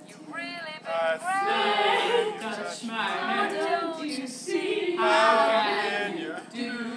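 A group of young women singing together without accompaniment, loudest in two stretches about one to two seconds in and again about five seconds in.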